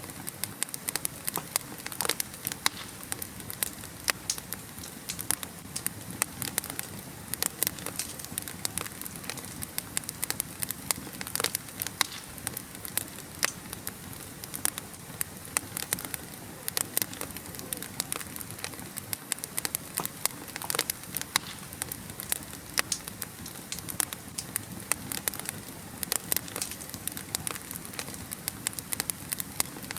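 Wood fire burning in a fireplace, crackling and popping irregularly over a steady hiss.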